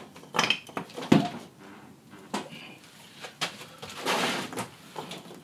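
12 mm plywood shims being knocked and slid into place under the feet of steel shelving racking: a handful of separate knocks and clatters, with a short scrape about four seconds in.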